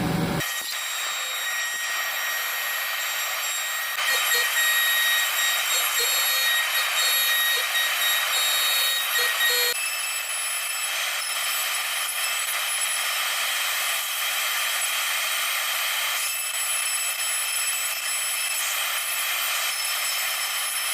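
CNC router spindle whining steadily as a V-bit carves letters into a wooden sign, a high hiss with several steady high tones; the sound shifts abruptly a few times.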